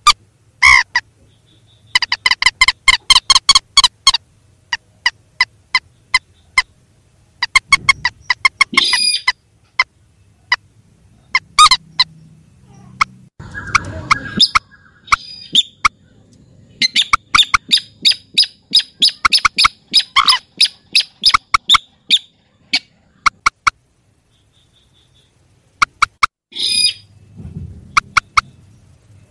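Mandar and sintar rails calling in bouts of fast, sharp repeated notes, with short gaps between bouts; the longest bout comes in the middle and lasts about five seconds.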